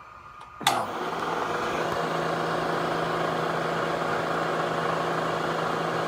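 Milling machine spindle motor switched on about half a second in, then running steadily with a constant hum, a small drill bit turning in its chuck.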